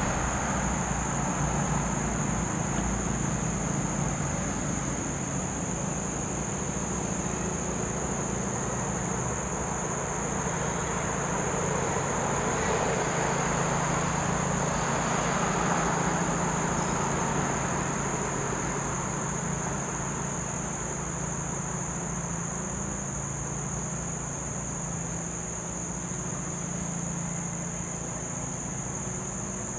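Steady chorus of insects, a continuous high-pitched trill that never breaks, over a low rumble.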